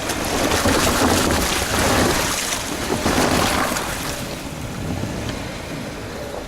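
Wind buffeting the microphone: a rushing noise over a low rumble that swells and eases.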